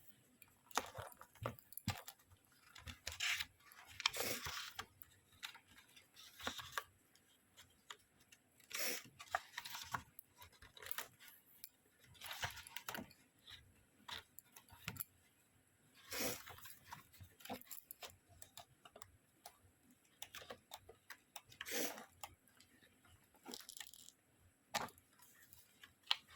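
Packaging being handled and opened by hand: irregular crinkling, rustling and tearing, with short louder crackles at several points.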